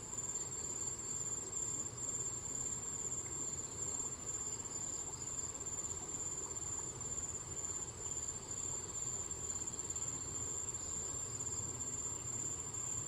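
Insects chirring in a steady, unbroken high-pitched buzz, over a low even background rush.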